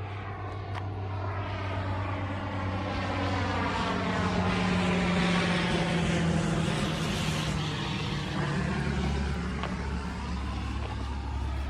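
Airplane passing overhead: its engine sound builds to a peak about halfway through, then fades, and the pitch drops as it goes by.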